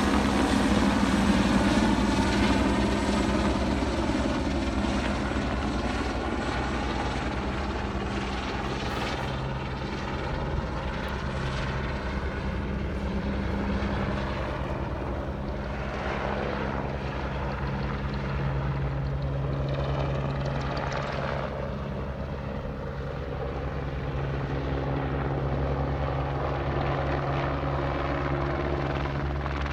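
Helicopter flying close by, its rotor beating steadily over the engine's hum, loudest in the first few seconds.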